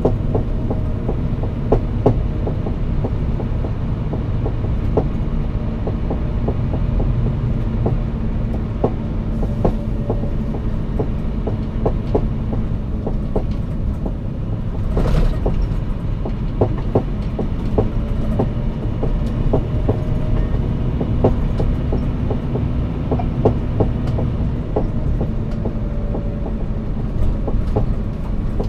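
Scania P360 truck driving at a steady pace, its engine drone constant, with frequent small rattles and knocks. There is a brief hiss about halfway through.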